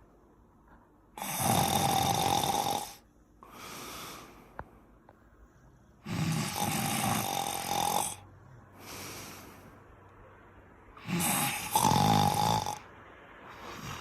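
Staffordshire bull terrier snoring in her sleep: three loud snores about five seconds apart, each followed by a softer breath out.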